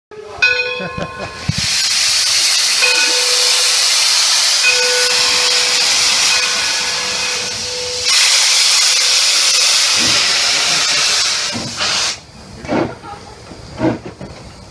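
A short steam whistle blast from the 1897 Baldwin steam locomotive, then a loud steady hiss of steam venting from its open cylinder cocks, broken briefly about eight seconds in. Near the end the hiss dies away and the first slow exhaust chuffs sound as the locomotive starts to move.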